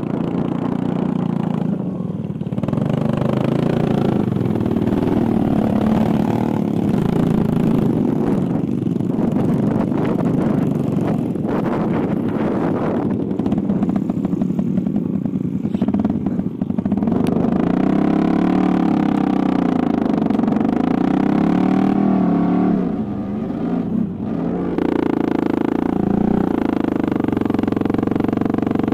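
Dirt bike engine running under way, heard on board the bike, its note rising and falling as the throttle is worked. Near the end the engine drops off briefly, then settles to a steadier note.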